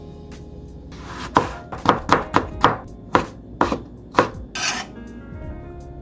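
Kitchen knife chopping on a cutting board, about nine quick strokes in a burst, roughly two a second. Soft background music plays underneath.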